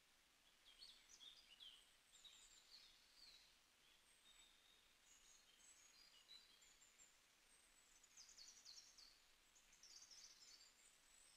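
Near silence, with faint, scattered bird chirps.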